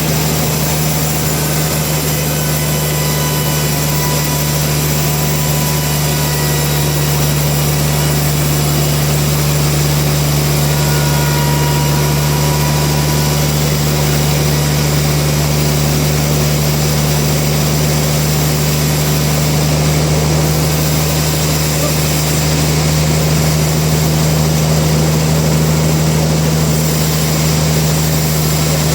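Sawmill machinery running with a steady, unbroken mechanical drone and hum.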